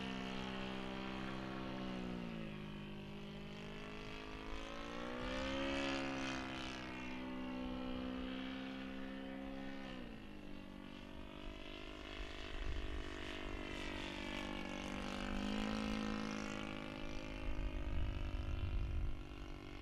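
Laser 80 four-stroke glow engine of a 1/5-scale model Fokker Eindecker in flight. Its pitch drops at about two and ten seconds and rises again at about six and sixteen seconds. A burst of low rumble comes near the end.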